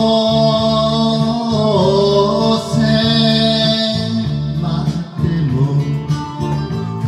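A man singing enka into a microphone over a karaoke backing track with guitar, holding long notes that bend in pitch about two seconds in.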